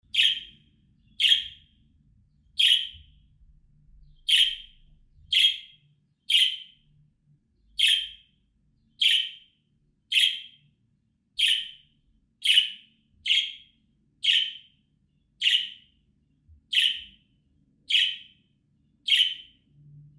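Budgerigar giving short, sharp contact calls, about seventeen in a row, one roughly every second.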